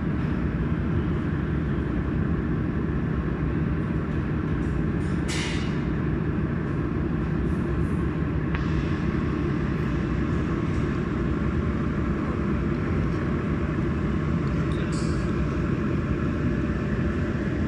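Mold-repair laser welding machine running with a steady low hum, broken by a few brief sharp ticks.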